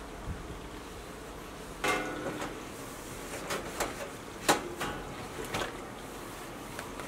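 A series of short clicks and knocks while a stainless steel kitchen sink is being cleaned. The first, near two seconds in, carries a brief ringing tone, and the loudest comes about four and a half seconds in.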